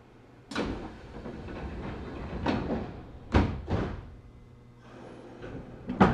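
Sliding doors of a JR 205-series commuter train closing, heard from inside the car as a series of thuds and knocks, the loudest a quick double knock about three and a half seconds in.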